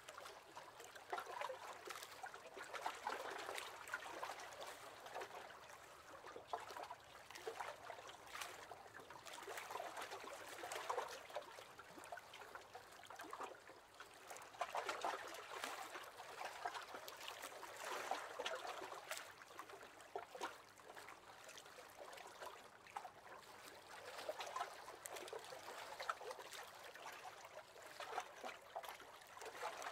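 Small waves lapping against the hull of a wooden rowing boat: faint watery splashes that swell and fade every few seconds.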